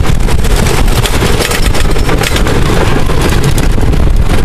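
Wooden roller coaster train running at speed on its track: a steady loud rumble with rapid clatter, under heavy wind buffeting on the microphone.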